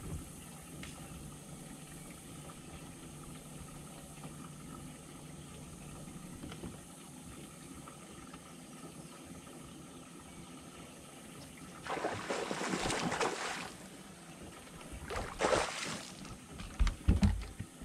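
Faint steady wind and water, then near the end a hooked bass thrashing and splashing at the surface in two bursts, followed by a few heavy thumps on the boat deck as the fish is swung aboard.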